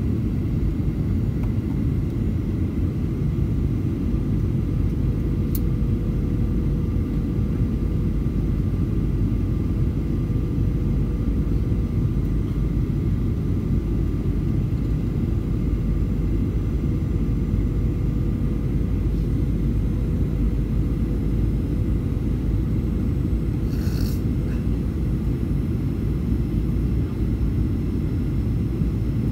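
Steady cabin noise inside a Boeing 737 descending to land: a low rumble of engines and airflow with a steady hum. A brief click about five and a half seconds in, and a short rattle near the end.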